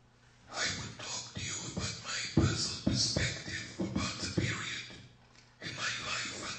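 A person speaking in short phrases, with a brief pause about five seconds in.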